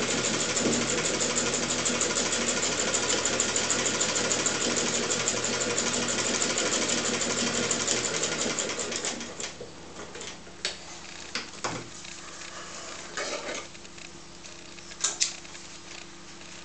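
Hand-cranked Standard Manufacturing Company sewing machine, a clone of the Singer 15K, stitching forward through denim with a fast, steady clatter that stops about nine seconds in. After that come a few scattered clicks and knocks.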